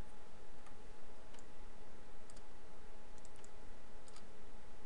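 Computer mouse clicking: a handful of light clicks, some single and some in quick pairs, over a steady hiss with a faint constant tone.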